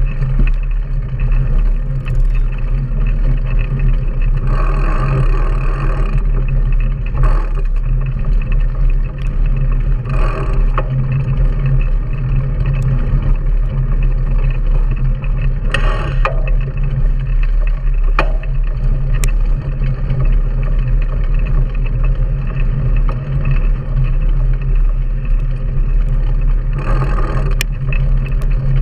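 Steady low rumble of wind buffeting and ride vibration on a handlebar-mounted action camera as a mountain bike rolls along a dirt track, with a few short bursts of higher-pitched noise.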